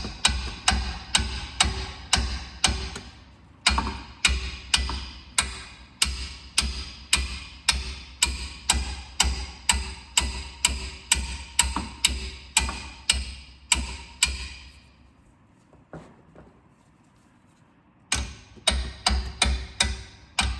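Hammer striking metal in a steady rhythm of about two to three blows a second, each with a short metallic ring, beating on a seized fastener on the front suspension to break it loose. The blows pause briefly about three seconds in, die away around fifteen seconds, and start again about three seconds later.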